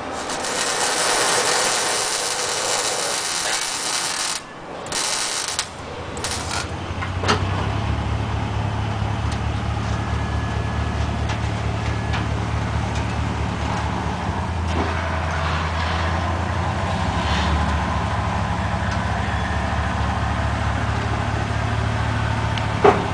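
Engine exhaust running through a Flowmaster muffler with freshly cut turndown tailpipes: after a few seconds of hiss-like noise, a steady low idle sets in about six seconds in and holds to the end.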